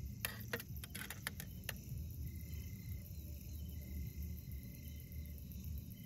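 A handful of sharp clinks and knocks in the first two seconds as a plate and a pot of food with spoons are set down on a folding camp table. After that, a high thin insect trill starts and stops a few times over a low outdoor rumble.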